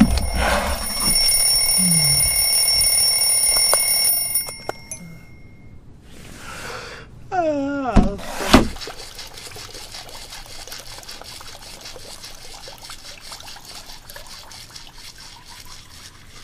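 Alarm clock ringing with a steady high electronic tone that cuts off about four seconds in. A falling pitched glide and two sharp knocks follow around eight seconds in, then a faint steady trickle of water.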